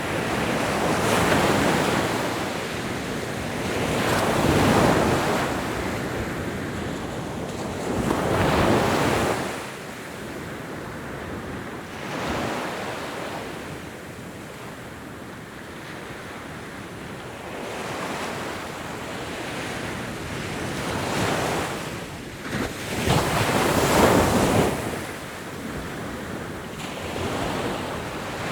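Ocean waves breaking and washing on the shore, the surf swelling and falling away in surges every few seconds, with a quieter lull in the middle.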